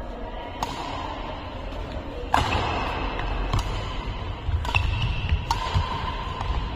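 Badminton racket strokes on a shuttlecock during a rally: about five sharp hits roughly a second apart, the loudest about two and a half seconds in, over background music.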